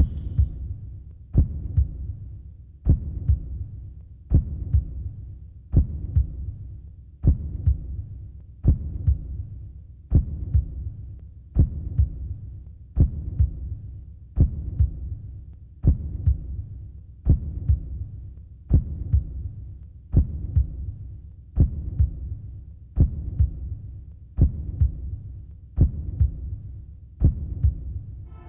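Slow heartbeat: a double lub-dub thump about every one and a half seconds, steady throughout, over a low hum.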